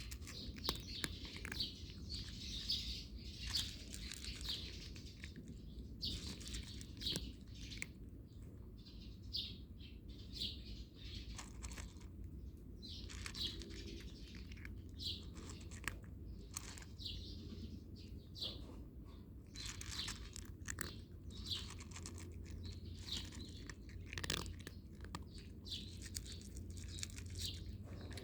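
Cats crunching dry cat food in a steady series of sharp crunches, while small birds chirp over and over in the background.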